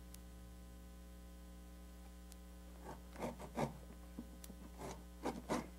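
A steady electrical hum, then from about halfway through a handful of short strokes of a backsaw starting a cut through a piece of quarter round in a miter box.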